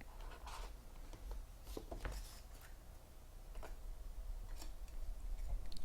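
Faint rustling and light scattered clicks of trading cards and their packaging being handled, over a low steady hum.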